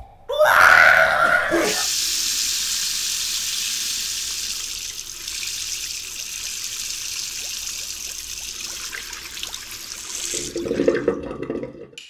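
Water rushing down a sink drain, a steady hiss that fades off near the end, after a short loud burst about half a second in.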